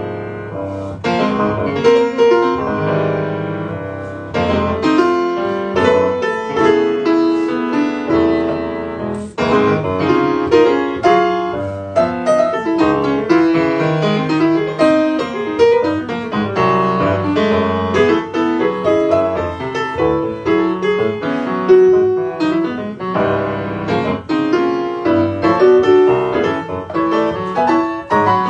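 Grand piano playing jazz, a busy passage of chords and quick runs of notes.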